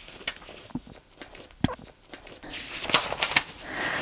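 Paper pages of a thick folder of handwritten letters being turned by hand: soft rustling with several short crinkles and taps, and a longer page-sweep rustle near the end.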